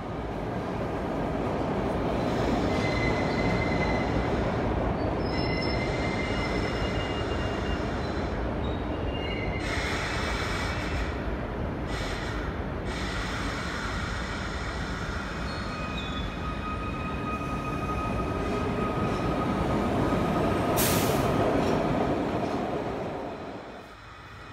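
SEPTA Broad Street Line subway train (Kawasaki B-IV cars) running on steel rails, rumbling steadily, with the wheels squealing in thin high tones several times. The noise builds as a train pulls in, then falls away as it comes to a stop near the end.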